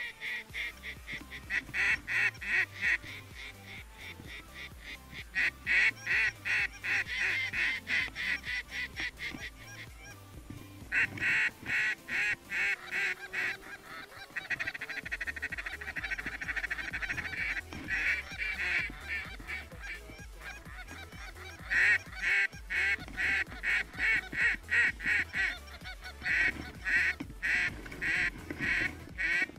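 Canada geese honking: quick runs of high, sharp honks, several a second, coming in bursts of one to three seconds with short gaps between.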